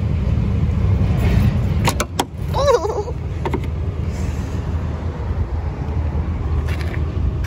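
Chevy C5500 bus engine idling, a steady low rumble. A couple of sharp clicks come about two seconds in as the rubber hood latch is unhooked.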